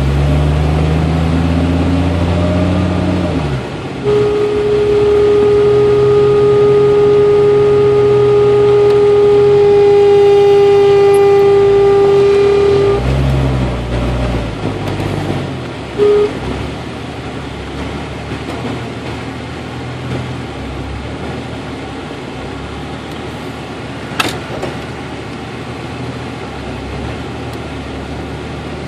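1992 Jeep Cherokee engine running with the air conditioning on. A brief rev dies down, then about four seconds in a steady whine comes in, holds for about nine seconds, cuts out and returns briefly a few seconds later. The whine is the A/C compressor with its clutch engaged, which the owner traced to an overcharged system letting liquid refrigerant into the compressor.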